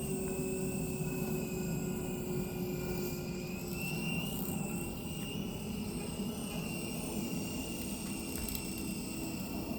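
Sky Rover toy remote-control helicopter in flight, its small electric motors whining and rotors whirring steadily, the pitch shifting slightly about four seconds in.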